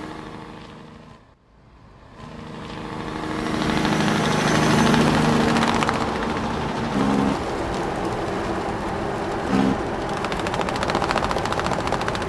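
Farm tractor engine running, edited from clip to clip: a steady engine hum that breaks off about a second in, then louder engine noise that builds over a few seconds and settles into a fast, even rattle.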